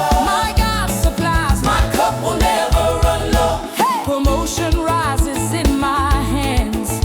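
African gospel praise music with a steady beat, bass and singing voices.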